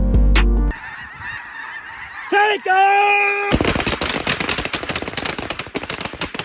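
Music cuts off about a second in. A single drawn-out goose-like call follows, then from about halfway a large flock of snow geese calling at once in a loud, dense clamour.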